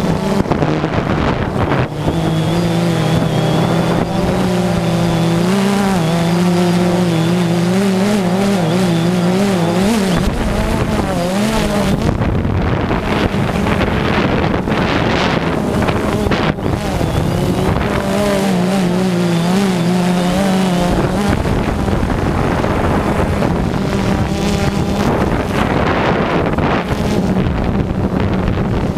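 DJI Phantom 2 quadcopter's motors and propellers humming, heard from the GoPro on board, the pitch wavering as the motors change speed. Wind on the microphone rushes over it, taking over for several seconds in the middle and again near the end.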